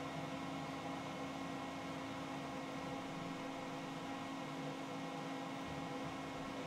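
NEMA 23 stepper motors driving the CNC router's Y-axis ball screws, giving a steady whine of several held tones as the gantry creeps during homing to auto-square against its end stops.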